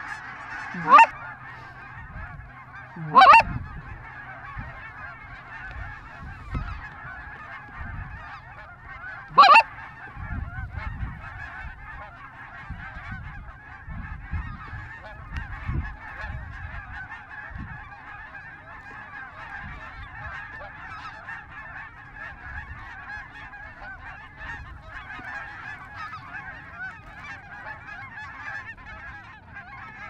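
A large flock of geese calling overhead, a steady din of many overlapping honks. Three louder, rising calls stand out: about a second in, around three seconds in and about nine and a half seconds in.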